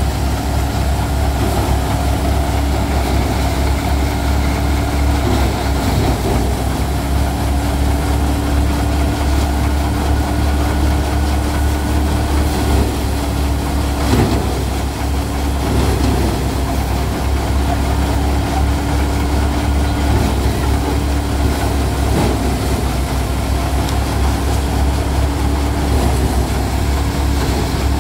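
Tractor engine driving a five-fan paddy thresher, running steadily as a deep drone with a constant hum. There is a single short knock about halfway through.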